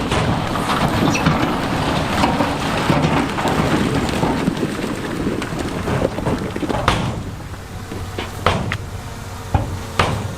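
A load of big stone rumbling and clattering as heavy diesel equipment dumps or pushes it. The dense rush of rock thins out after about seven seconds into a few separate knocks of stones settling, with a diesel engine running underneath.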